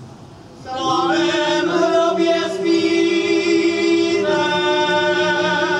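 Men's choir singing a folk song: a brief pause between phrases, then a long sung phrase in full voice beginning under a second in.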